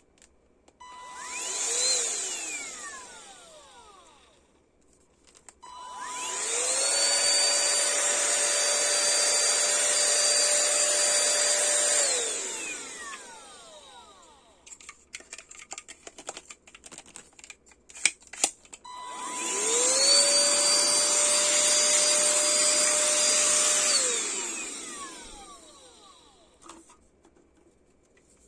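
Shunzao Z1 cordless handheld car vacuum cleaner, its battery pack newly refilled with 18650 cells, being switched on three times. First comes a brief blip about two seconds in, then two runs of about six and five seconds. Each time the motor whine rises to a steady pitch over the airflow hiss and falls away as it spins down, with clicks of handling between the runs.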